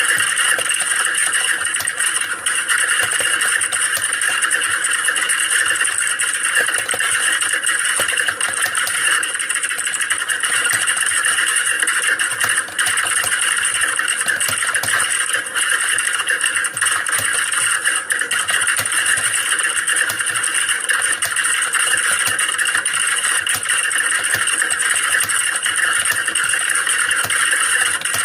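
Many computer keyboards being typed on at once, as in a typing-test hall: a dense, unbroken clatter of keystrokes at a steady level.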